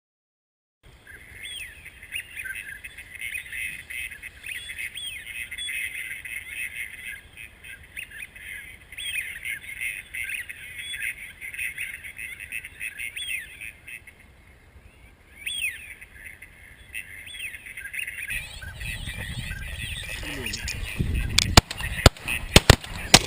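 A flock of ducks calling: many overlapping short squawks and quacks. Near the end a low rumbling noise rises and several shotgun shots are fired in quick succession.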